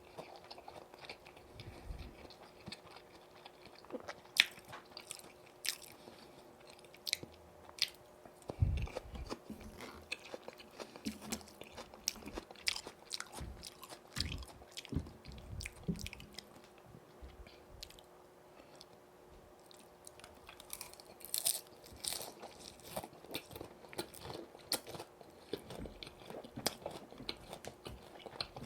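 Close-miked eating sounds of a person biting and chewing crispy boneless fried chicken coated in yurinki sauce: irregular sharp crunches with soft chewing between them, with a brief flurry of crunches about two-thirds of the way through.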